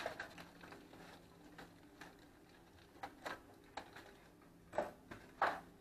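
Aluminium foil crinkling faintly as it is pressed and folded shut around a roasting pan, with a few short crackles in the second half.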